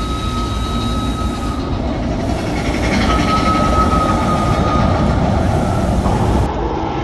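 Big Thunder Mountain mine-train roller coaster running along its track, with a high steady squeal near the start and again in the middle.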